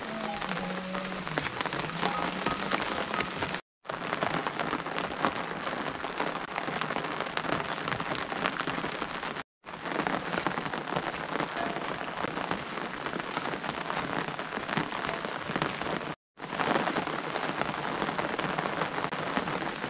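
Steady rain falling, with many close drop hits. The sound cuts out completely three times, briefly, about 4, 9½ and 16 seconds in.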